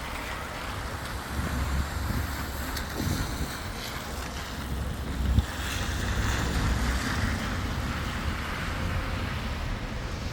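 Steady rain, with wind buffeting the microphone in a low rumble, and a short knock about five seconds in.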